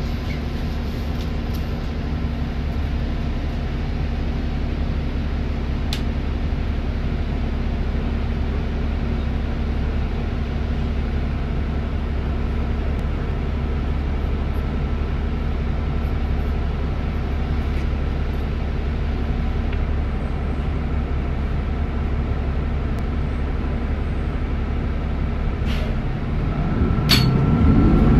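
Bus engine idling, a steady low rumble with a faint hum. Near the end it revs up with a rising whine as the bus pulls away from the stop.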